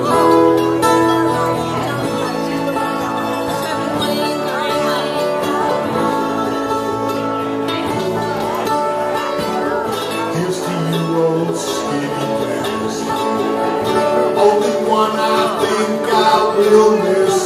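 Live country-style band playing: strummed acoustic guitar, electric guitar and a plucked mandolin, in a steady, unbroken groove.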